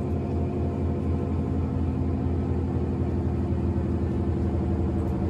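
Steady low background hum with several constant tones: continuous ambient machine noise, with no change through the stretch.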